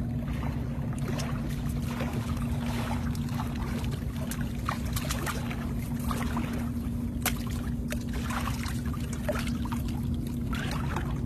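A boat's engine running steadily with a low hum, with scattered light knocks and clicks over it.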